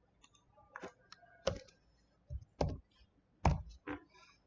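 A handful of irregular clicks from a computer mouse and keyboard while component values are entered into circuit-design software.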